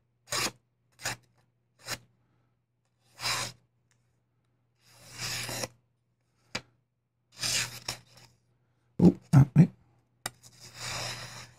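Magnacut blade of a TRM Bulldog folding knife slicing a sheet of paper, a string of short cuts and a few longer drawn strokes with paper rustle, and three louder knocks about nine seconds in. It is the unstropped factory edge, which the owner thinks carries a small burr from machine sharpening that makes it catch.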